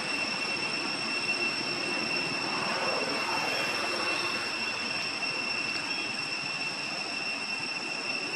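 Steady background noise with a continuous high-pitched whine held on one pitch.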